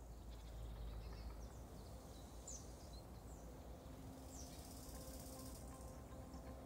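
Faint outdoor ambience: birds chirping several short times over a low steady rumble. A soft held music note fades in about two-thirds of the way through.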